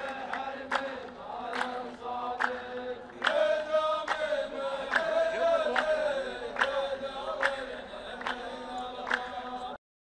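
A line of men chanting together in unison, with sharp hand claps in unison a little more often than once a second. The chanting and clapping cut off abruptly near the end.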